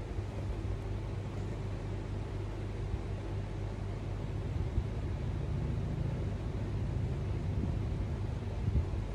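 Steady low hum with a faint hiss, and a couple of soft bumps partway through and near the end.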